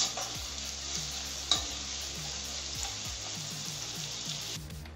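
Sliced onions and curry leaves sizzling in hot mustard oil in a kadai as a spatula stirs them, with one sharp tap of the spatula about one and a half seconds in. The sizzle drops away just before the end.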